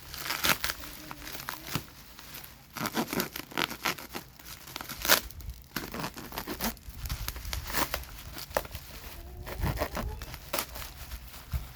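Packing material being torn open and crumpled by hand in irregular bursts as a new chainsaw is unwrapped.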